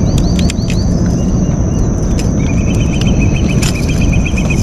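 Mangrove estuary ambience: a steady high insect drone, a run of short rising bird chirps in the first second and a fast chattering trill from about halfway, over a loud low rumble. Scattered sharp clicks come from pliers and a popper's treble hooks being worked out of a freshly caught snapper.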